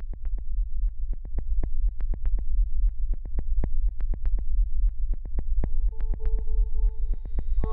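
Sharp clicks at an uneven pace, several a second, over a steady low rumble, with a sustained two-note tone joining about three-quarters of the way through.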